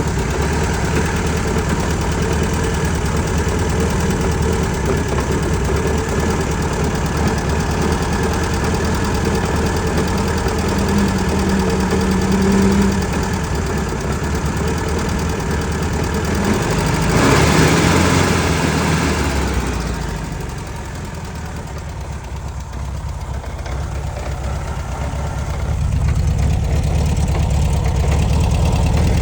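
1966 VW Beetle's 1300cc air-cooled flat-four engine running at idle, with a clunking noise whose cause the owner does not know. The sound grows louder and brighter about seventeen seconds in, turns softer a few seconds later, then returns to its earlier level.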